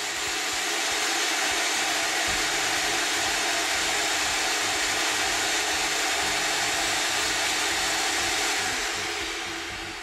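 Vacuum cleaner running, its hose nozzle sucking loose static grass fibres off model scenery so that only the glued tufts stay standing. A steady rushing noise that fades away near the end.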